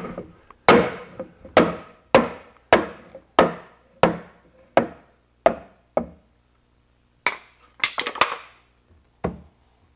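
A hammer striking a wooden block held against a PVC Inserta Tee hub, about nine steady blows over the first six seconds, driving the hub into its rubber sleeve in the manhole wall. A few scattered knocks follow near the end.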